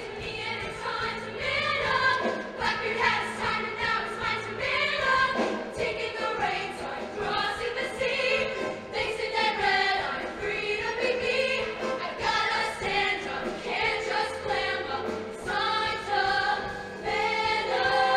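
Show choir singing in harmony with instrumental accompaniment.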